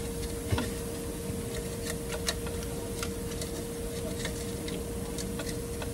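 Deep-fryer oil sizzling under fried chuck steak in a wire basket, with scattered sharp ticks and light clinks as a fork picks the pieces out. A steady hum runs underneath.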